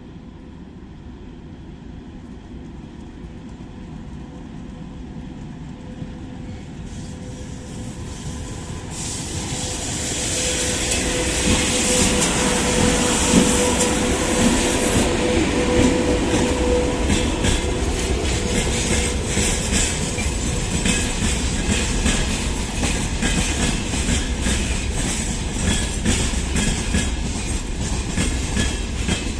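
VL80k electric freight locomotive approaching with a freight train, growing louder over about the first ten seconds with a steady whine, then the wagons rolling past with a rhythmic clickety-clack of wheels over rail joints.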